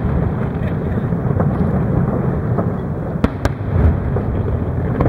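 Fireworks display: a continuous low rumble of bursting shells, with two sharp bangs in quick succession a little after three seconds in.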